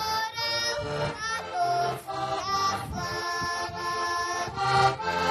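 Heligónka, the Slovak diatonic button accordion, playing a folk tune: a reedy melody in chords over short low bass notes that come and go with the rhythm.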